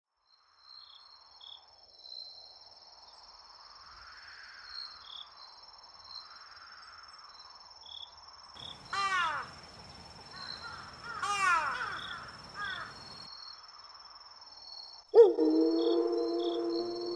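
Night insects chirping steadily, crickets-like, with two runs of harsh, falling caws about nine and eleven seconds in. Near the end a loud sustained tone with several steady pitches starts suddenly.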